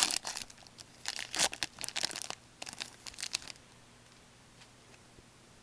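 Hockey card pack wrapper crinkling and tearing as it is ripped open by hand, in several short bursts over the first three and a half seconds.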